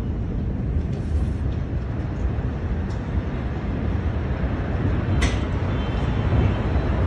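Steady low rumble, heavy in the bass, picked up by a phone microphone in the aftermath of a huge explosion. A few brief high rattles or clinks come through about a second, three seconds and five seconds in.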